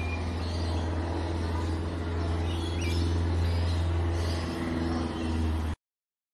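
Birds chirping in short high calls over a steady low hum; the sound cuts off abruptly near the end.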